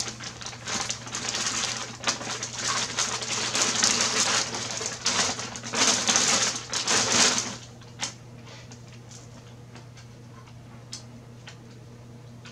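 Clear plastic packing bag crinkling and rustling as it is pulled off a heavy item. The crinkling stops about two thirds of the way through, and a few light clicks follow.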